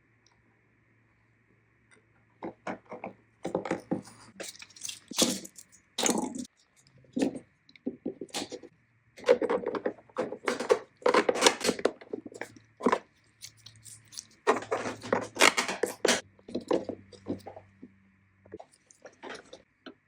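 Small plastic parts being handled and fitted together: irregular clicks, taps and scraping in bursts, over a faint steady hum that stops near the end.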